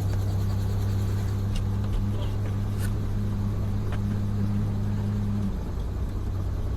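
Helicopter running with a steady low drone that dips briefly about five and a half seconds in.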